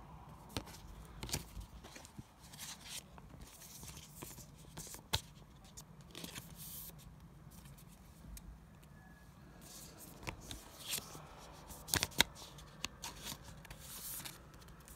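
Pokémon trading cards being handled close by: sliding, rustling and scraping, with scattered sharp clicks, the sharpest about five seconds in and around twelve seconds.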